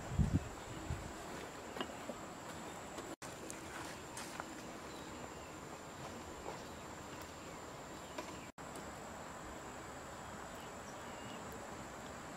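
Steady outdoor insect drone, a thin high continuous buzz over a soft even hiss, with a few dull low thumps about a second in.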